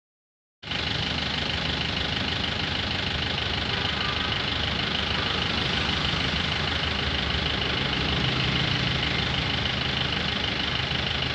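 Engine running steadily at idle with a rapid, even knock, cutting in abruptly about half a second in.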